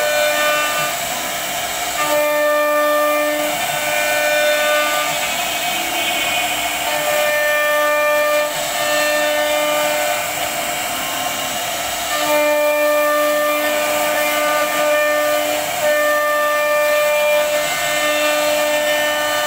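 CNC router spindle running at a steady high-pitched whine as its bit carves a wooden panel, with a steady hiss of cutting under it. The whine's upper tones swell and fade in stretches of a second or two.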